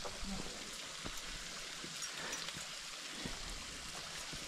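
A stream running steadily over rocks into a pool, a soft even rush of water, with a few faint light knocks over it.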